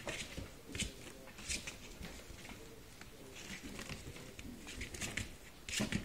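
Puppies' claws scrabbling and scratching against the wall of a whelping box as they try to climb out. The scratching comes in short, irregular bursts, with a louder flurry near the end.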